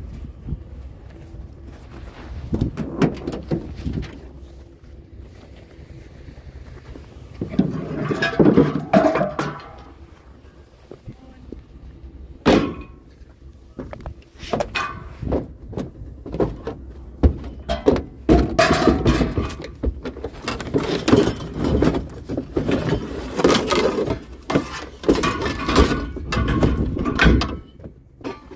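Repeated thuds, knocks and clattering, as of objects being handled and moved about, with a single sharp bang about twelve seconds in.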